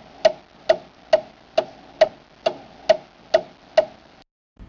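Steady clock-like ticking, a little over two ticks a second, that stops about four seconds in.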